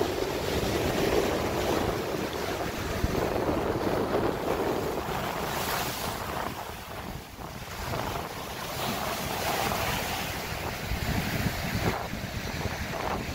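Ocean surf: small waves breaking and washing up a sandy beach, rising and falling in swells, with a brief lull about halfway through.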